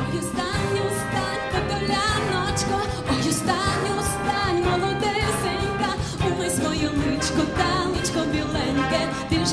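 A woman singing with a live jazz big band and string section behind her, in a jazz arrangement of a Ukrainian folk song. Her vocal line wavers and bends over the full band and a steady drum beat.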